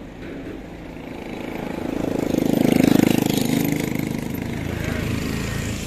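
A motor vehicle's engine running close by, growing louder to a peak about three seconds in and then fading, as it passes or moves off.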